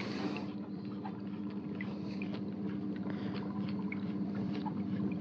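Steady hum of a fishing kayak's electric drive motor while trolling, two low tones held evenly, with faint scattered small ticks over it.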